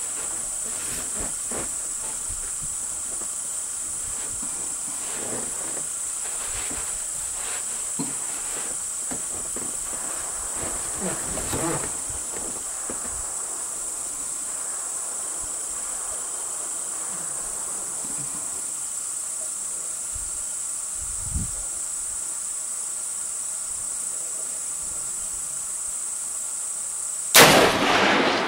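Steady high-pitched chorus of crickets, then about 27 seconds in a single loud rifle shot with a short ringing tail, from a Ruger No. 1 single-shot rifle in 7x57 Mauser firing a 160-grain Nosler AccuBond.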